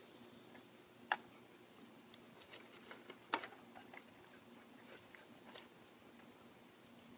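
Dogs nosing at the ground in grass: scattered small clicks and crunches, with two sharper ones about a second and about three and a half seconds in.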